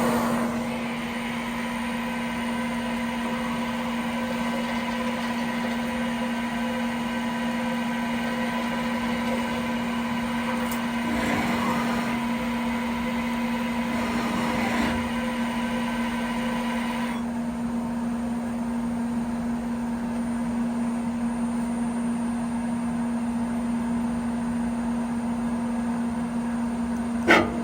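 Citizen Cincom Swiss-type CNC lathe running with a steady hum. A background hiss drops away about two-thirds of the way through, and there is a sharp click near the end.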